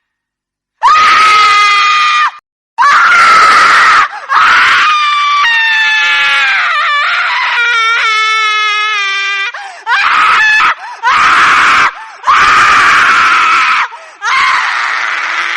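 A string of loud, high-pitched screams used as a horror sound effect, some held and wavering, each broken off by a short gap. They start about a second in.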